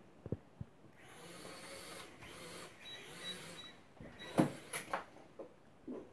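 Small toy quadcopter's motors whirring steadily for about three seconds as it flies. The whir stops, and two sharp knocks follow about four seconds in as the drone comes down onto the floor.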